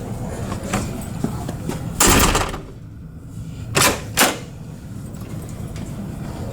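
A free-swinging door with a Sargent 18-77 knob mortise lock: a short rushing scrape about two seconds in, then two sharp clacks about half a second apart as the latch and door strike the frame.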